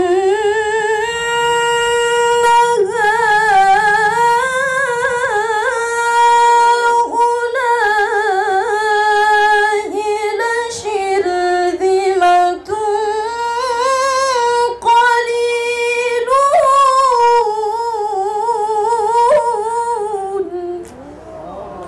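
A woman reciting the Quran in melodic tilawah style, holding one long ornamented phrase in a high register, with wavering pitch turns rising and falling. The voice stops near the end.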